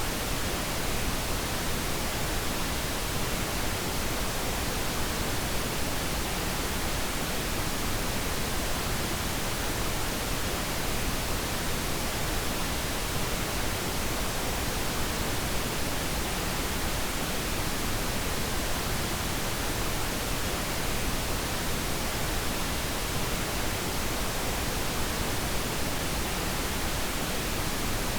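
Steady pink noise played as a sleep aid: an even, unchanging hiss with no breaks or events.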